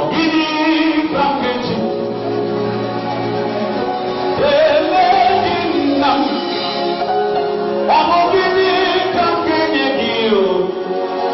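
Gospel music in church: several voices singing together over sustained accompaniment, with sliding melodic lines.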